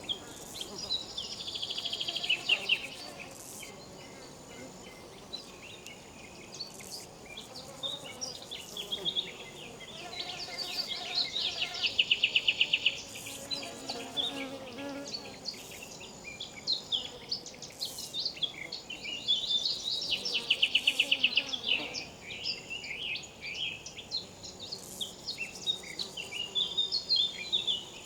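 Riverside insects buzzing and trilling, with three loud bouts of rapid pulsing trills a couple of seconds each. Scattered high chirps, with a faint steady high whine and soft water noise underneath.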